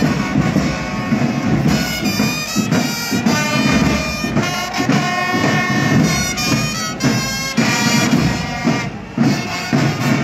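Parade music: wind instruments play a melody of held notes over drums.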